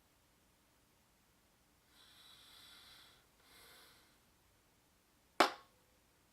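A single sharp knock about five seconds in, the loudest sound, with a short ring after it. Before it come two soft breaths.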